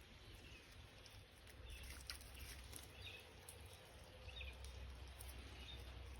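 Near silence: a faint low wind rumble, with a few short, high bird chirps scattered through it.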